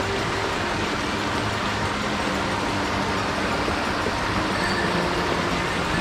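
Steady rushing of a mountain stream's flowing water, an even, unbroken noise.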